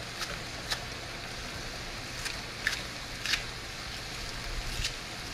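Kitchen scissors snipping scallion into a skillet: about half a dozen sharp snips over the steady sizzle of seafood and vegetables sautéing.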